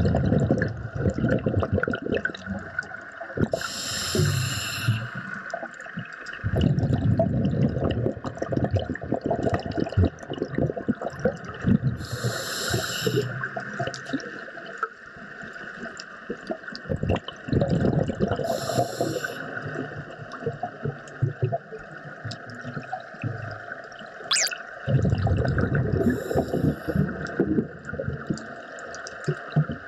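Scuba diver breathing underwater through a regulator: four short hissing inhalations with a whine, each followed by a long rumble of exhaled bubbles, repeating every seven to eight seconds.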